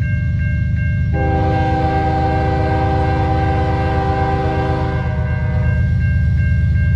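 Freight train rumbling heavily while a locomotive air horn sounds one long chord blast of about four seconds, starting about a second in. A bell rings about three strokes a second before and after the horn.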